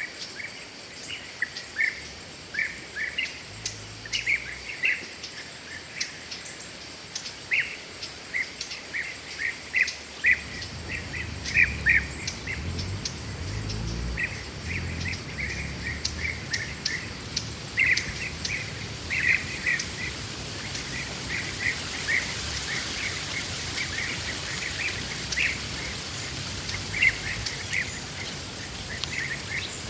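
Forest birds calling in many short, repeated chirps, over a steady high hiss that grows stronger in the second half.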